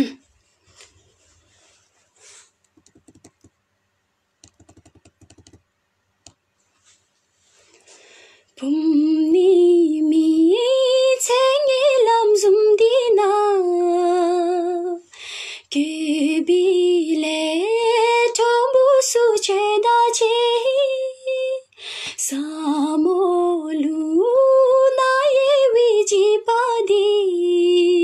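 A woman singing solo and unaccompanied, with long held, wavering notes. She starts about eight seconds in and breaks off briefly twice; before that there are only a few faint clicks.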